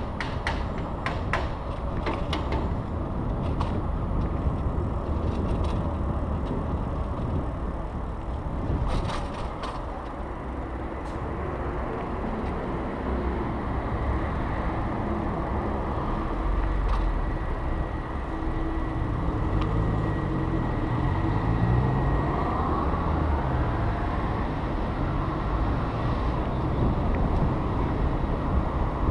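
Steady wind and road rumble on an action camera's microphone as a bicycle rides through city traffic, with sharp clicks and rattles in the first few seconds and again about nine seconds in. After about twenty seconds a motor vehicle's engine rises and falls in pitch.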